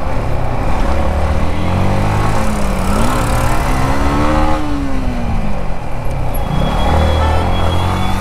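Motorcycle engine running under way, most likely the Yamaha MT-15's 155 cc single-cylinder. From about three seconds in its pitch climbs as it revs up, then drops back over the next couple of seconds, against a steady rush of wind.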